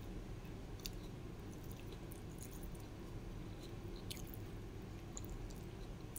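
A person chewing food with scattered small wet clicks, over a steady low hum.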